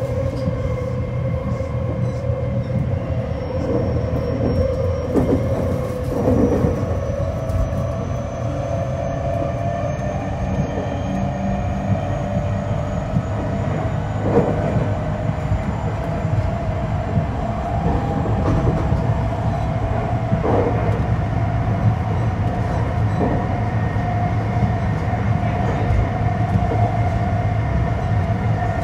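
JR West 225-5100 series electric train with Toshiba IGBT VVVF traction motors, heard from inside a motor car while running: a steady wheel-and-rail rumble under a motor whine that slowly rises in pitch as the train gains speed. A few knocks come as the wheels pass rail joints.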